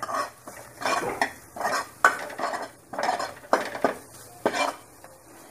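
A steel spoon stirring and scraping chopped garlic, ginger and capsicum frying in ghee around a kadhai, about two strokes a second. The stirring stops near the end.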